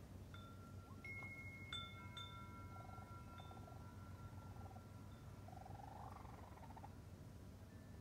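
Wind chime struck a few times a little over a second in, its clear tones ringing on for several seconds. Raccoon kits make faint trilling chirps under it, twice.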